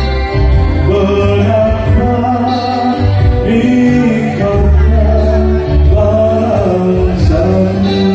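A live band playing through a PA: a man singing into a microphone over keyboard and electric guitar, with deep bass notes that change about once a second.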